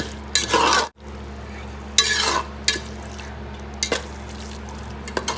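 Spoon stirring and scraping thick onion-and-curd masala around a metal pot, in a few short scrapes over a steady low hum. The sound drops out for an instant about a second in.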